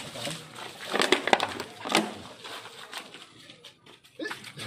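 Crunching and rustling of dry debris, wood and a woven plastic sack being handled, with a few short, louder crackles about a second in and again about two seconds in.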